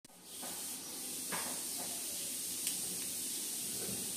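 A steady hiss that swells in over the first second and then holds level, with a few faint soft knocks.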